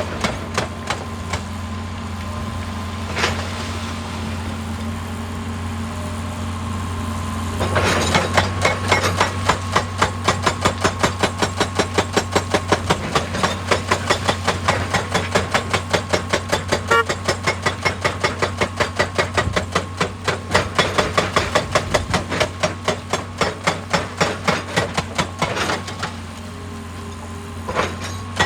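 Excavator-mounted hydraulic rock breaker hammering rock in a rapid, even rhythm of about five blows a second, over the steady drone of the excavator's diesel engine. For the first several seconds only the engine runs with a couple of single knocks, the hammering starts about a quarter of the way in, pauses briefly near the end, and starts again.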